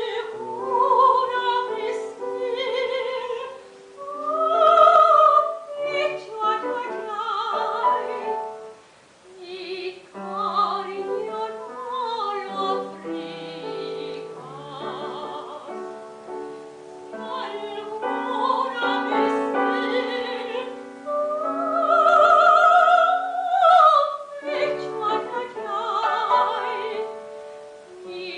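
Operatic singing with wide vibrato over piano accompaniment, the voice entering strongly at the start and swelling on long held high notes.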